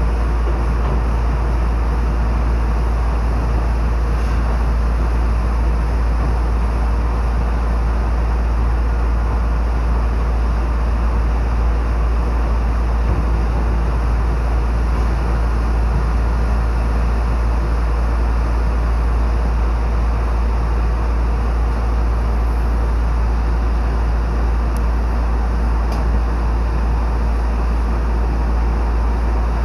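Steady running noise of a train with a constant deep rumble, heard from on board. It stays even throughout with no distinct clatter or announcements.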